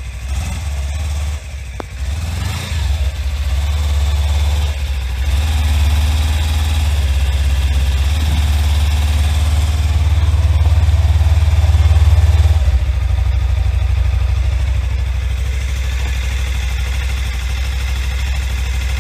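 Suzuki V-Strom 250's parallel-twin engine idling on its first run after a top-end overhaul. It grows louder over the first few seconds, holds a steady idle, then eases back a little about two-thirds of the way through.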